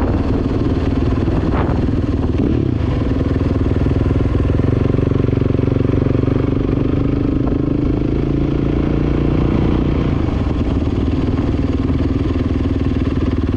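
Dirt bike engine running steadily while riding along, its pitch rising and falling a little with the throttle.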